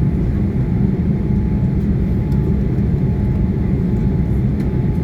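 Jet airliner engines: a steady, loud low rumble.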